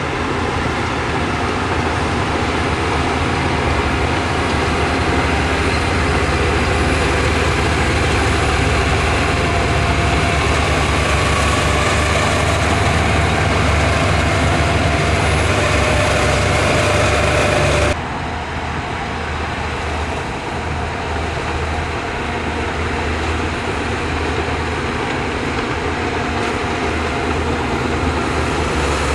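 Heavy diesel construction machinery running steadily, a low engine drone with a faint wavering whine. About two-thirds of the way through the sound changes abruptly and drops a little in level.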